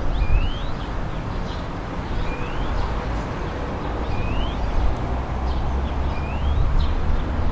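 Town ambience: a steady low rumble of distant traffic under a constant hiss, with a bird repeating a short rising chirp about every two seconds.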